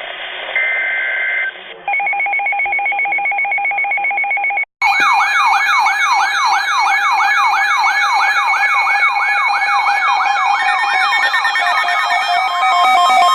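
Emergency Alert System broadcast tones: a burst of the warbling digital SAME header data, then a steady pulsing two-tone attention signal. About five seconds in, a cut, then many overlapping wailing siren tones sweeping up and down rapidly, layered with steady beeping alert tones.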